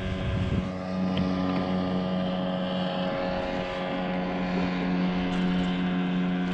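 A motor running at a steady pitch: a constant drone made of one low hum and many overtones, neither rising nor falling.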